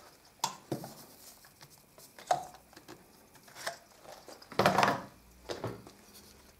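Scattered light knocks and clicks as a clothes iron and hand tools are handled and set down on a wooden workbench, with a louder clunk about five seconds in.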